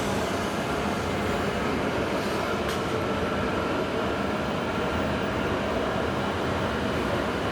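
E7 series Shinkansen train running out of the platform: a steady rush of train noise with faint steady hums, and one brief tick partway through.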